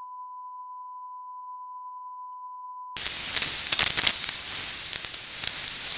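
Steady 1 kHz test tone played with SMPTE colour bars, which cuts off abruptly about three seconds in to crackly hiss with many scattered clicks.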